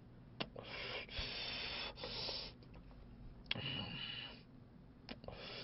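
A man smoking a cigarette: several breathy hisses as he blows out smoke, then a draw on the cigarette about three and a half seconds in, with small lip clicks at the filter.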